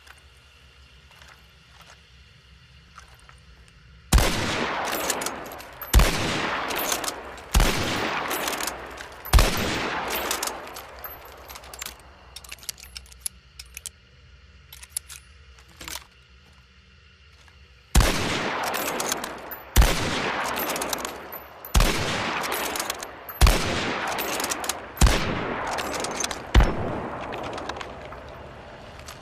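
Krag-Jørgensen bolt-action rifle firing: four shots about two seconds apart, a pause of several seconds, then six more at the same pace. Each shot is followed by a long echoing tail, with light clicks in between.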